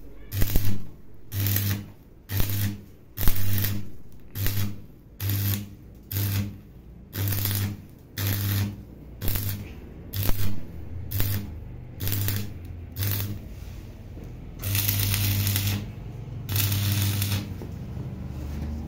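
Stick welding with a covered electrode: the arc crackles and buzzes in short bursts about twice a second, then in two longer runs of about a second each near the end.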